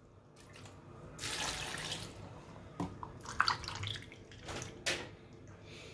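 Water poured from a plastic bottle into a stainless steel measuring cup, an uneven splashing stream with a few sharper splashes.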